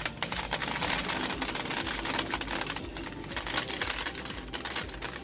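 Gumballs pouring from a plastic bag into a gumball vending machine's canister: a dense, rapid clatter of hard candy balls dropping onto the gumballs already inside.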